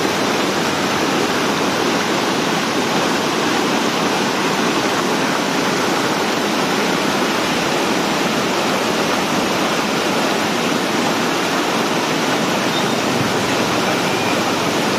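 Brown floodwater rushing over a low concrete dam crossing, a steady, loud churning rush of whitewater rapids.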